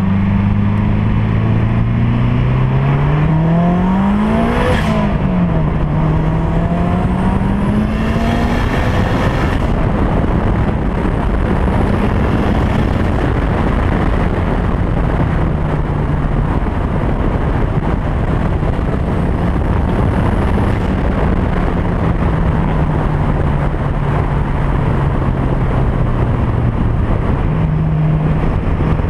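Turbocharged SR20VE four-cylinder of a 1999 Infiniti G20 pulling hard through the gears: its note rises to a shift about five seconds in and climbs again, with a rush of hiss from the blow-off valve around the second shift near eight seconds. After that it holds a steadier, lower note. Heavy wind and tyre noise come from the camera mounted outside by the front wheel.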